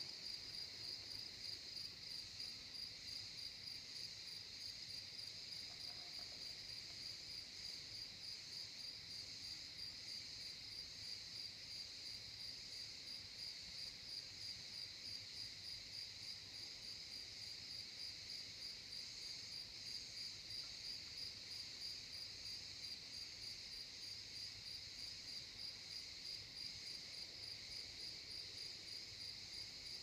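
Crickets chirping in a continuous chorus: a steady, high-pitched trill that never lets up.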